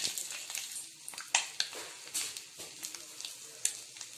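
Oil sizzling under halved boiled eggs frying on a dosa griddle, with irregular sharp pops and crackles of spitting oil.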